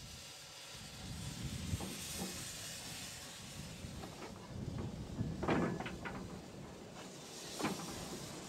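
Narrow-gauge steam tank locomotive starting away with a goods train: a steady hiss of steam from the open cylinder drain cocks, with a few slow, irregular exhaust chuffs and clanks as the train gets moving, the loudest a little past halfway.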